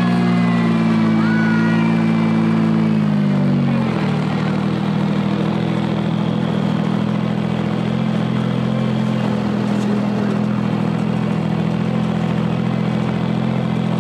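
Engine of a ride-on miniature railroad locomotive running with a steady drone. Its pitch drops about three to four seconds in, then holds steady as the train rolls on.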